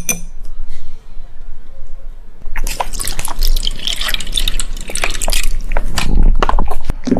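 Liquid cat food squeezed from a pouch and dripping onto food in a bowl while a cat licks at it. This is a dense run of short wet clicks and drips that starts about two and a half seconds in.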